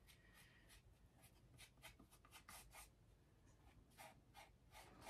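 Faint rubbing of fingertips smoothing wet plaster gauze on a plaster mask: an irregular string of light strokes.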